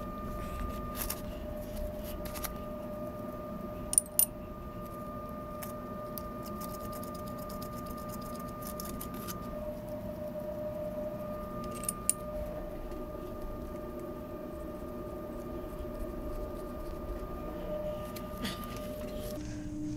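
Light metallic clinks of pipe-coupling bolts and nuts being handled and fitted by hand, with two sharp clinks about four seconds in and another about twelve seconds in, over a steady equipment hum.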